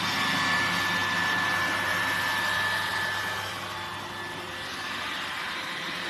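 Robot vacuum cleaner running: a steady whirring hiss with a high whine and a low hum, the whine fading and the sound easing slightly about halfway through.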